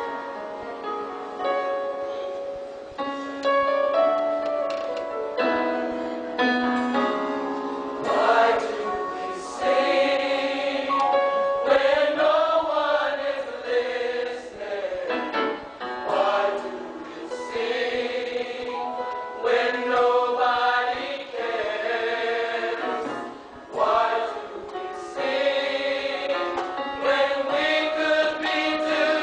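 Mixed gospel choir of men and women singing together in harmony, holding long notes that swell and fall, with a brief drop in loudness about three-quarters of the way through.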